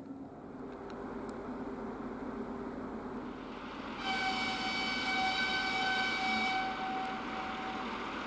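Twin-section 2M62 diesel locomotive sounding one long horn blast about halfway through, a single steady high-pitched tone lasting two to three seconds, over the steady running of its two-stroke diesel engines as it starts away with a passenger train.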